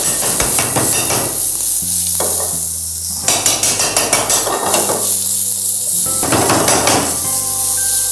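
King oyster mushroom pieces sizzling in hot oil in a nonstick frying pan. The sizzle swells and eases in waves, with a few quick clicks about halfway through as the pan is moved.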